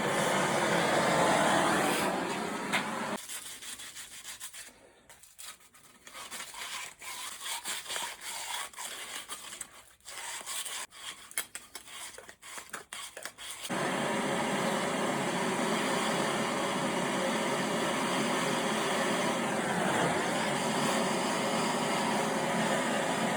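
Steady hiss of a soldering torch on the copper pipe, which stops about three seconds in. Then come about ten seconds of scraping, rubbing and light metal clicks, and the steady torch hiss starts again.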